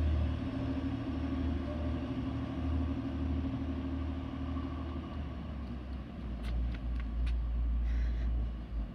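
TransPennine Express Class 185 diesel multiple unit running as it pulls away, a low rumble with a steady engine note that fades after about five seconds. A few faint clicks come about six to seven seconds in.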